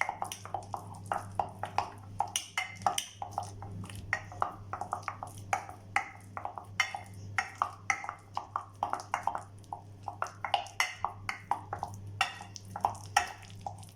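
A drinking glass knocking and pressing down again and again on ripe plantain in a dish, mashing it: many short, irregular knocks with a slight ring, a few each second, over a low steady hum.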